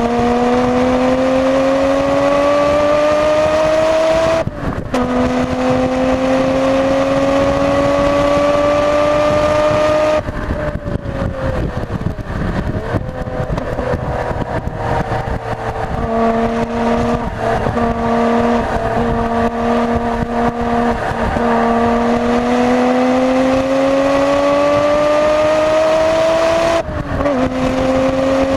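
Nissan Skyline GT-R R33's RB26DETT twin-turbo straight-six, fitted with N1 turbos, pulling hard on track: the engine note rises, drops with an upshift about four and a half seconds in, and rises again. Around ten seconds in the driver lifts off and the note falls to a lower, steady tone, then the engine climbs once more with another upshift near the end.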